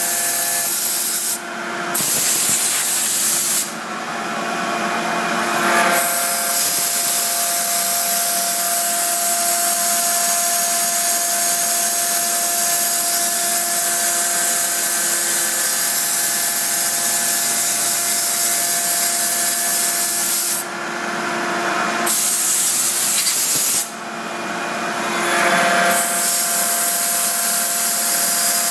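Spiral-twist lathe's electric cutter motor cutting a hollow twist into a rotating wooden spindle: a steady, loud whine with the hiss of the cutter chewing through wood. Four times the noise drops suddenly and climbs back over a second or two.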